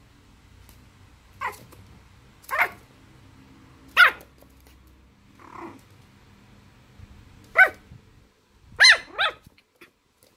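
Dog barking in short, high yips while playing: about six sharp barks, each dropping in pitch, with a softer one in the middle and the last two in quick succession.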